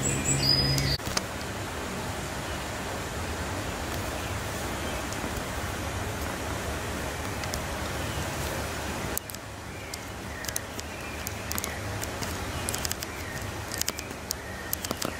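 Steady outdoor background noise with faint chirps, dropping abruptly about nine seconds in, with a few sharp clicks near the end.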